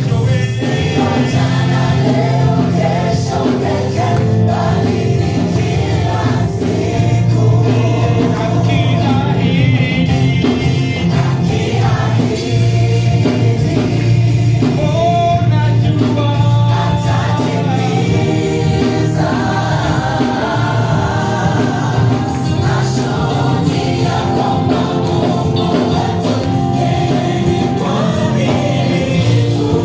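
Gospel worship music: a choir singing over instrumental backing with a steady low bass line.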